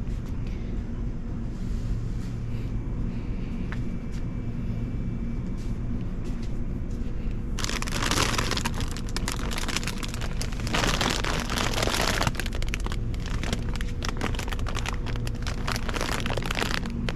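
Steady low rumble of a car's engine and road noise heard from inside the cabin. About eight seconds in, plastic shopping bags or packaging start rustling and crinkling, in dense crackly handling noise that goes on to the end.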